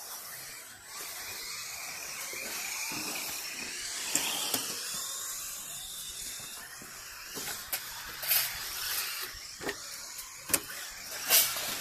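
1:10-scale electric RC rally cars running on a court track: a faint electric motor whine rising and falling over a steady hiss of tyres on the surface. Several sharp knocks and scrapes come from about four seconds in, the loudest near the end.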